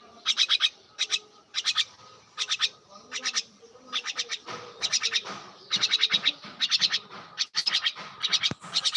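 A bird calling in a rapid chatter: short trains of quick clicking notes, repeated about twice a second.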